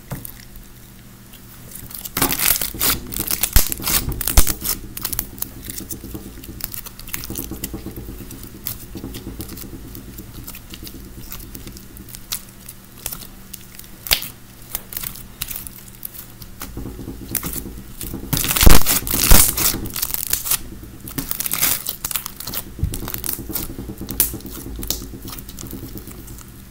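Clear slime loaded with jelly cubes and beads being stretched, squished and kneaded by hand: wet crackling, clicking and popping of air bubbles, in two louder spells a few seconds in and again past the middle.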